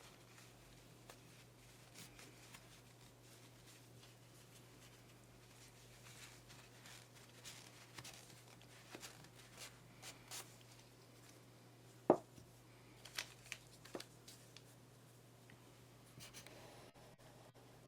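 Faint handling sounds from hands working a vape mod and its packaging: scattered light clicks and rustles, with the sharpest click about twelve seconds in and a few more just after. A faint steady low hum runs underneath.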